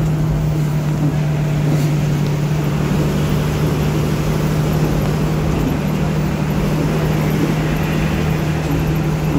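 Bus engine running with a steady low drone, heard from inside the cabin while driving, with an even hiss of tyres on a wet road.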